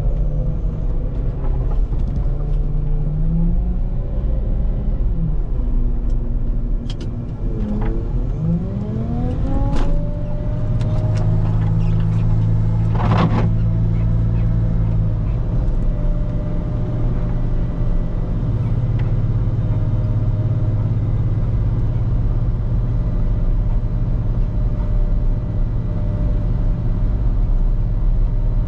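Volvo L90H wheel loader's diesel engine working while plowing snow. Its pitch drops and climbs again a few times in the first ten seconds, then holds steady under load, with a few sharp knocks around the middle.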